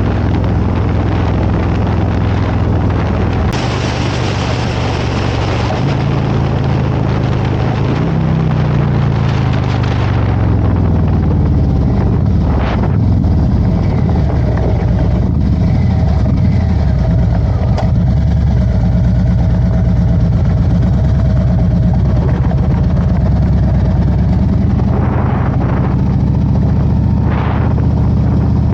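Harley-Davidson Road Glide's V-twin engine under way. Its note climbs in steps over the first several seconds, then falls away, and settles into steady running. Wind rushes over the microphone for the first ten seconds or so.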